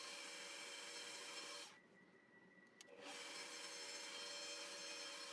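Faint steady hiss and hum of room tone, dropping out almost completely for about a second from just under two seconds in.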